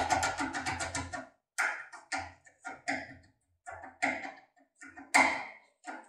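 Metal clicking of a CISA ASIX tin-foil impression pick being worked in a clamped CISA ASIX lock cylinder: a fast, even rattle of clicks for about the first second, then single sharp clicks and taps every half second or so as the tool is turned and rocked, the loudest near the end.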